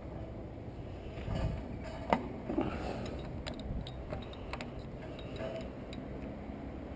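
Scattered light clicks and metal clinks of tools working on the parts of a gas water heater, with one sharper knock about two seconds in.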